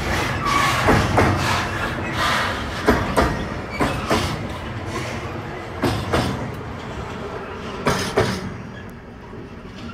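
Wheels of the last flat wagons of a slow intermodal freight train clicking over the rail joints in pairs, about every two seconds, over a steady rolling rumble. The sound fades near the end as the end of the train moves away.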